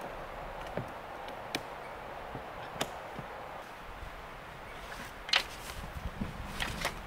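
Scattered knocks and clicks of items being handled in a plastic storage tote on a car's roof rack. The loudest knock comes about five seconds in, followed by a quick run of lighter knocks.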